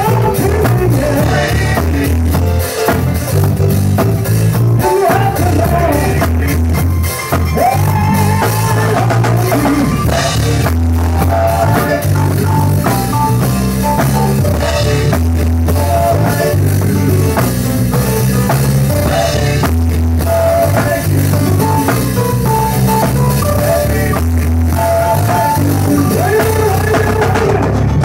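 A live gospel band playing in rehearsal: a drum kit keeping a steady beat under a moving bass line, with guitar on top.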